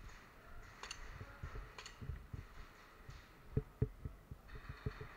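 Two sharp clicks about a second apart, then soft, quick thumps of footsteps on a concrete floor.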